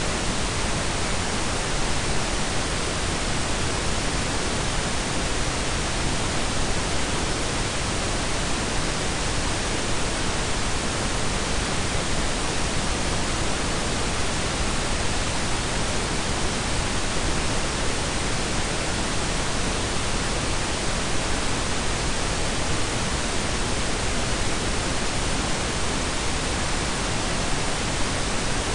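Synthetic pink and brown noise blended together: a steady, even hiss with a deep rumble, unchanging throughout.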